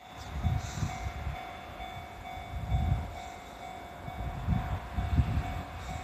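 Japanese railway level crossing alarm ringing its repeated electronic bell about twice a second, over uneven low rumbling.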